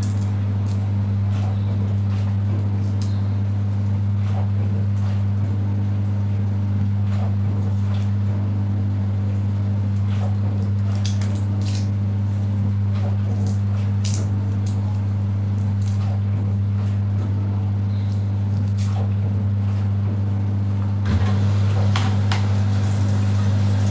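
A knife cutting raw potato on a plastic chopping board: scattered irregular taps and clicks over a steady low hum. The background noise grows louder near the end.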